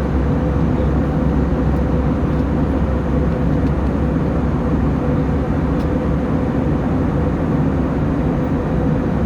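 Passenger jet's engine and airflow noise: a steady, even rush with a low rumble and a constant hum, holding the same level throughout.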